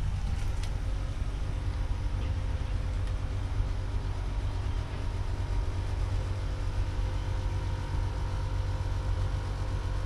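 Rasonic wall-mounted split air conditioner running: a steady low hum with faint steady tones over it. A couple of faint ticks sound in the first second.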